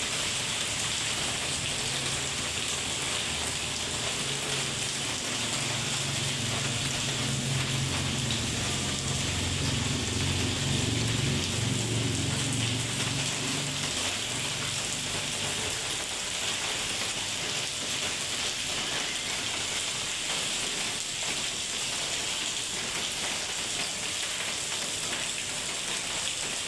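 Steady heavy rain falling on surfaces, an even hiss throughout, with a low rumble that swells from about three seconds in and dies away by about fourteen seconds.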